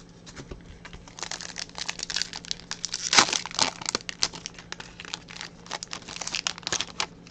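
Crinkling and crackling of a baseball card pack wrapper and cards being handled, a dense irregular run of small crackles starting about a second in.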